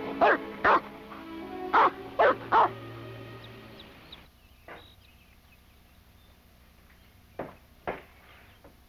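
A large German-shepherd-type dog barking five times in the first three seconds over film-score music, which fades out about four seconds in. Two soft thuds come near the end.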